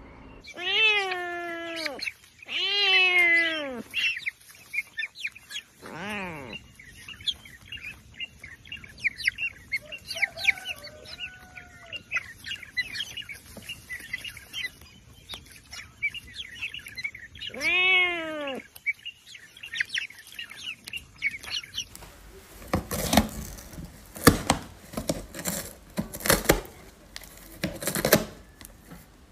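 A cat meowing: four drawn-out meows that rise and fall in pitch, one of them sliding down, with small birds chirping in the background. Later comes a fast run of sharp scratching and tearing clicks from a cat clawing and biting at a cardboard box.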